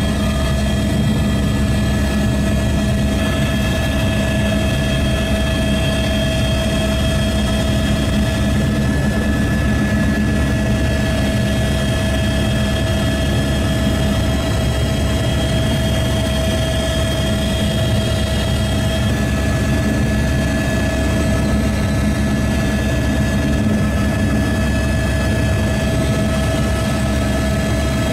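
Helicopter turbine engine and rotor running steadily in flight: a constant low rumble with several steady whining tones above it.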